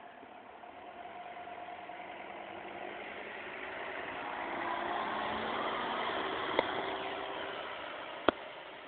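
An ambulance driving up and passing close by without its siren: engine and tyre noise growing louder to a peak about halfway, then falling away. Two sharp clicks in the second half.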